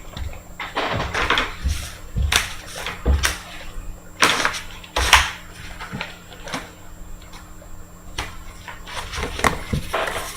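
Trading cards and plastic card holders being handled on a table: scattered clicks, taps and light rustles, irregular, with the sharpest ones around two to five seconds in.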